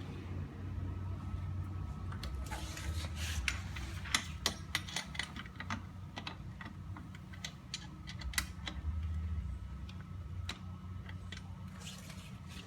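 Irregular light metallic clicks and taps of hand tools working on an electric trike's rear axle cam and belt pulley, over a low steady hum.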